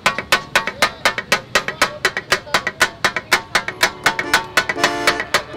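Taka-tak: two metal spatulas striking a flat iron griddle (tawa) in a fast, rhythmic clatter of several strikes a second as the cook chops and mixes mutton qeema. A brief steady tone sounds near the end.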